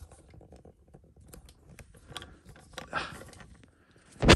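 Handling noise from a phone camera on a tripod being adjusted by hand: scattered small clicks and rustles, then one sharp, loud knock near the end.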